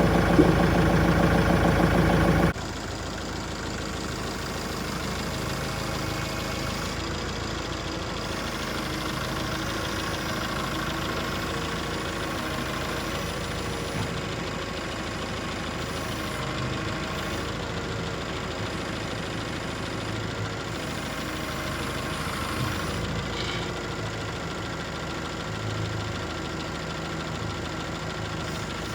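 Tractor engine running: loud for the first two and a half seconds, then it drops suddenly to a quieter, steady idle.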